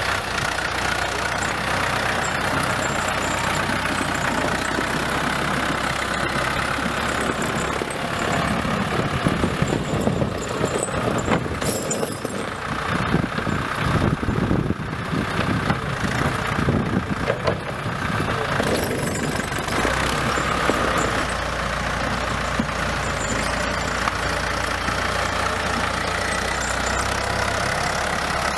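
Valmet 702 tractor's diesel engine running steadily as it pushes snow with its front loader. Its low hum shifts a couple of times, and it is rougher and more uneven for a stretch in the middle.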